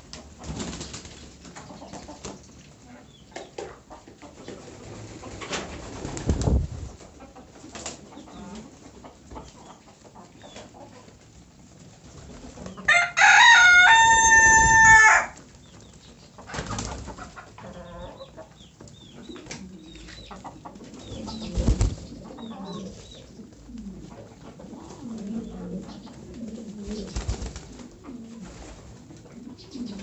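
A flock of domestic pigeons cooing low while they jostle and flap their wings. About halfway through, a loud, steady, high call of about two seconds is the loudest sound.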